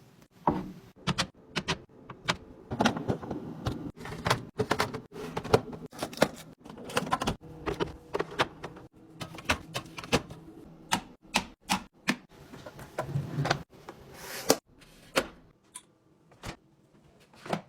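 Irregular clicks, taps and knocks of food containers, jars and bottles being set down, slid and handled on fridge shelves during restocking, several a second with occasional louder knocks.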